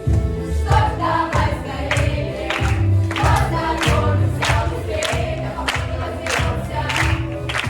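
Music with choir-like voices over a steady, heavy beat.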